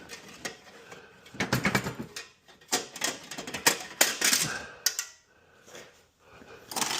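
Irregular clicks and metallic clanks of hand tools on the snowmobile's exhaust pipes as they are being unbolted, with a quiet spell about two-thirds of the way through.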